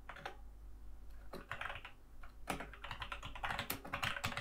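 Typing on a computer keyboard: runs of quick key clicks, with a pause of about a second near the start and a faster run in the second half.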